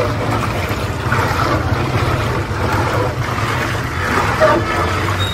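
Busy street noise: a steady low engine hum under a general din.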